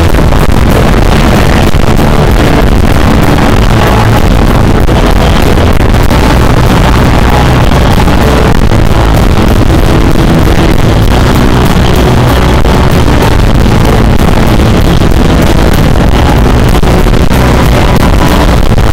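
A live band with electric guitar and drums playing loud music, recorded through an overloaded camera microphone, so it comes out as a dense, heavily distorted wall of sound with a strong steady bass.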